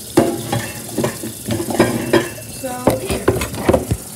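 Kitchen knife chopping chocolate on a plastic cutting board: a quick, uneven run of about a dozen sharp knocks of the blade hitting the board, some with a short ring.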